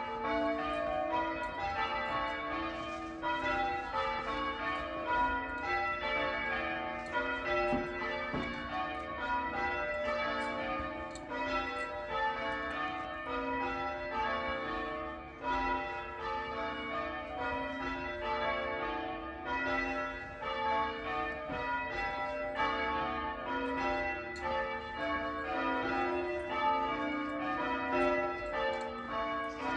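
Church tower bells rung in changes: a steady, unbroken stream of strikes at several different pitches, one bell after another, each ringing on into the next.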